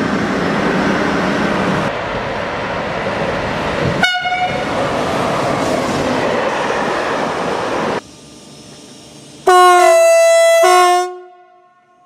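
Trains passing with a steady rush of wheel and running noise, then about three-quarters of the way through a loud two-tone train horn sounds for about a second and a half before fading out.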